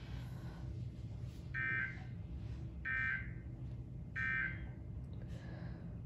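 Emergency Alert System end-of-message data signal played through a television speaker: three short buzzy bursts about a second apart, marking the close of the alert, over a low steady hum.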